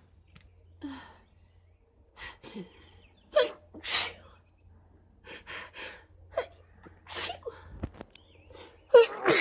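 A woman sneezing several times, with quick gasping in-breaths before sharp sneezes; the loudest come about four seconds in, about seven seconds in and at the very end.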